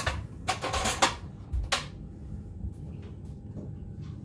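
A few short clatters and knocks in the first two seconds, over a steady low hum.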